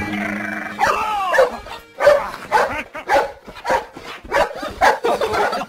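Cartoon sheepdog's voice: a falling whine about a second in, then a quick run of short yips and barks, about three a second.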